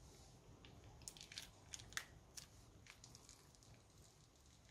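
Faint crackles and sharp clicks as slime is squeezed out of a plastic piping bag into a bowl of slime, clustered between about one and three seconds in.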